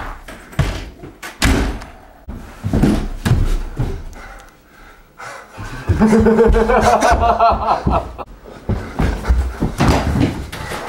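Thumps, knocks and bangs of a physical struggle in a house, with a drawn-out wavering pitched sound lasting about two seconds, some six seconds in.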